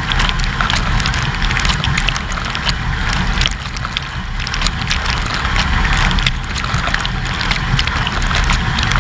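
AEG dishwasher's wash cycle heard from inside the tub: water from the spray arms splashing and spattering against the camera, over a steady low hum from the circulation pump.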